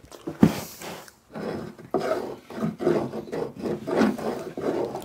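Wood rubbing and scraping in a quick rhythm of about two to three strokes a second, with a sharp click about half a second in.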